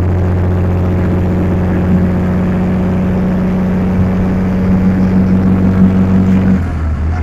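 Heavy truck's diesel engine droning steadily under load while climbing a hill, heard from inside the cab. The drone cuts off suddenly near the end.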